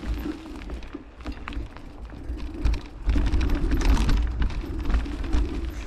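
Mountain bike rolling over a rough dirt trail, its frame and drivetrain clicking and rattling over bumps and roots, with a heavy low rumble on the bike-mounted microphone; it gets louder about three seconds in.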